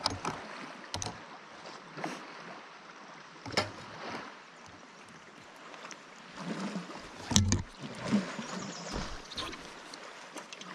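Lake water lapping and splashing against an inflatable Alpacka Mule packraft, with scattered knocks and clicks from the paddle and fishing gear being handled aboard; the loudest knock comes about seven seconds in.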